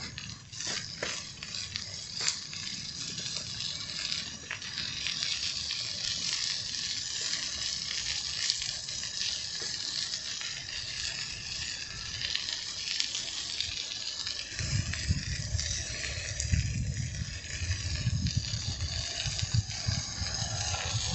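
Ride noise from a bicycle rolling along a paved street: a steady hiss of tyres and air past the microphone, with a few light clicks and rattles near the start. About two-thirds through, heavier low rumbling gusts of wind buffet the microphone.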